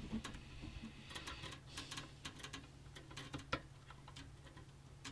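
Faint scattered plastic clicks and ticks as a 4-pin CPU power connector is lined up and worked into its keyed, latching socket on the motherboard, with one sharper click about three and a half seconds in. A low steady hum runs underneath.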